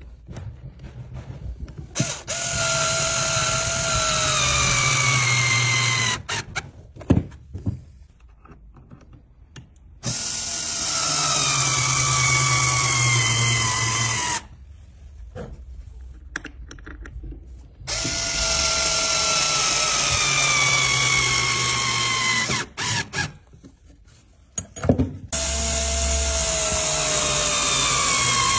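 Cordless screwdriver driving screws through a metal corner guard into a wooden skirting board, in four runs of about four seconds each. The motor's whine slides down in pitch during each run as the screw bites and tightens, with a few clicks and knocks in between.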